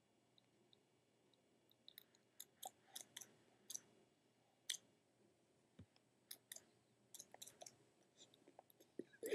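Savannah monitor chewing a boiled egg: faint, irregular sharp clicks of its jaws, starting about two seconds in, with a louder bite right at the end.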